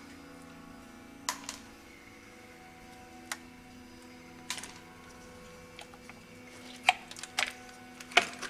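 Diagonal cutters snipping component leads on a circuit board: a series of sharp separate clicks, then a closer cluster of clicks and knocks as the board is handled, loudest near the end. A faint steady hum runs underneath.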